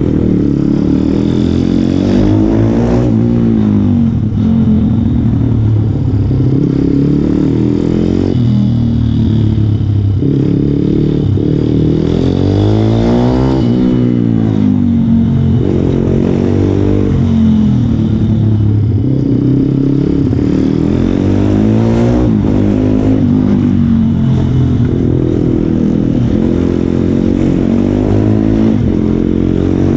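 Small engine heard from onboard as the vehicle laps an indoor kart track, its revs climbing along the straights and dropping back for the corners several times over.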